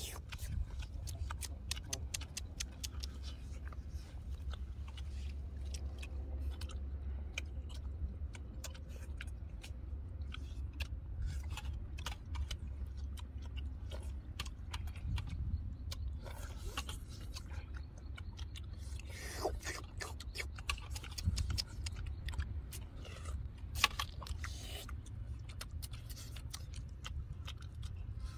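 Close-up eating sounds of cooked duck: wet chewing, lip-smacking and meat being torn from the bones, heard as many small sharp clicks, over a steady low rumble.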